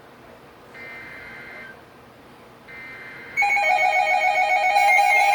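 Emergency Alert System SAME header on NOAA Weather Radio: two buzzy, roughly one-second bursts of digital data tones, about two seconds apart. About three and a half seconds in, a much louder steady alert tone begins: the attention signal that announces a warning.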